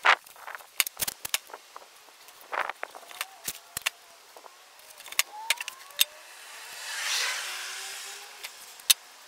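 Masking tape being torn off the roll and pressed down onto a plastic body panel: a run of sharp clicks and crackles. About seven seconds in, a louder whooshing hiss swells up and fades away over about two seconds.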